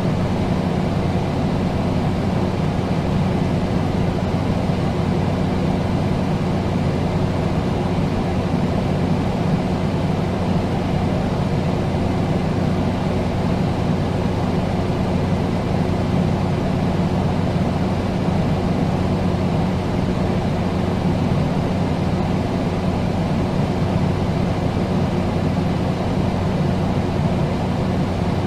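Air conditioner running steadily: a constant rush of air with a low hum underneath.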